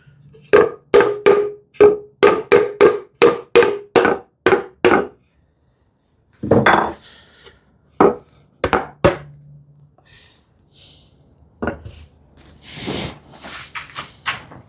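Quick run of about fourteen sharp metallic taps, roughly three a second, each with a short ring, as a metal hand tool is tapped at the workbench. A few separate heavier knocks follow, then softer handling and rustling.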